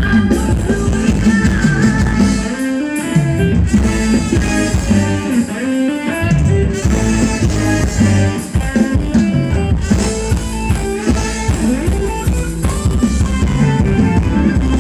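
Amplified live luk thung band playing a ramwong dance song: electric guitar over a drum kit keeping a steady dance beat.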